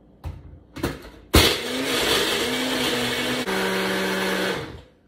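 Single-serve personal blender crushing ice cubes with milk and protein powder. A couple of clicks come as the cup is seated on the base, then the motor starts suddenly about a second and a half in. It runs for about three seconds, its pitch stepping down partway through, and stops just before the end.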